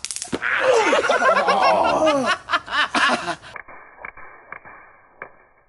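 People laughing and snickering, with a brief rapid run of clicks near the three-second mark; after about three and a half seconds the sound turns suddenly muffled and quieter, with a few faint clicks.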